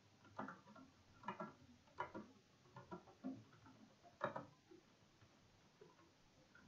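Faint, irregular keystrokes on a computer keyboard as a sentence is typed, about a dozen light clicks stopping a little before the end.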